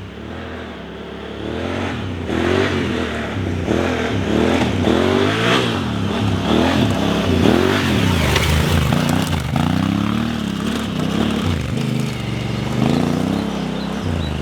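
Adventure motorcycle engine being revved up and down over and over while riding offroad, its pitch rising and falling about once a second over a steady rough noise. It gets louder about two seconds in.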